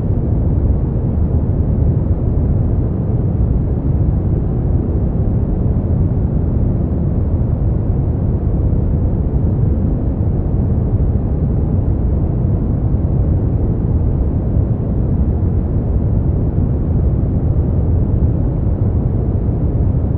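Brown noise: a steady, deep rushing hiss, heaviest in the low end and with no high treble, unchanging throughout.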